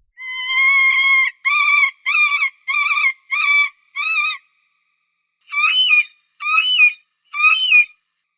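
Falcon calling: one long, shrill call of about a second, then four shorter calls in quick succession, and after a pause three more calls that rise and fall in pitch.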